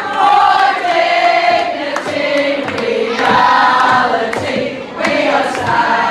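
A group of voices singing together, holding long notes that change pitch every second or so, with a few sharp clicks cutting in.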